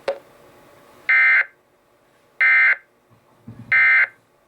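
Emergency Alert System end-of-message signal: three short bursts of digital data tones, evenly spaced about 1.3 seconds apart, marking the end of the alert. A sharp click comes just before the first burst.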